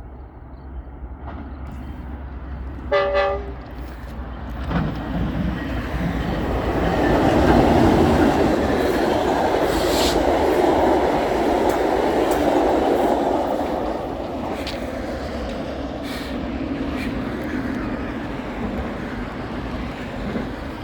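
Metrolink commuter train passing: a short horn toot about three seconds in, then the rumble and wheel clatter of the train going by, loudest in the middle and fading toward the end.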